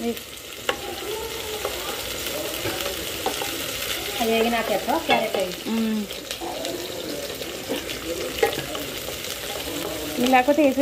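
Sliced onions and green chillies sizzling steadily in oil in a non-stick pan, stirred and pushed around with a wooden spatula.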